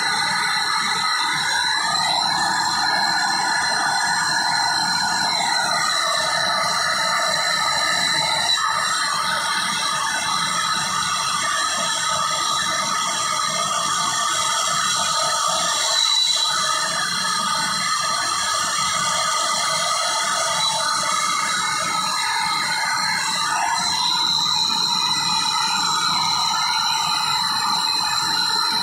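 Steady hiss of a handheld gas brazing torch flame while copper refrigerant lines are brazed, with background music.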